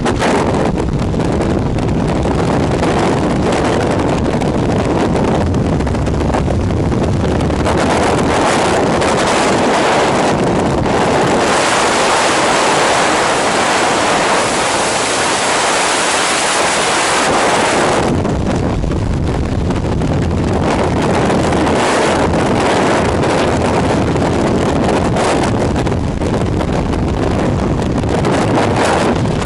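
Rushing freefall wind blasting across a camera microphone during a tandem skydive: a loud, steady rush of air. About twelve seconds in it turns thinner and hissier for several seconds, then fills out again.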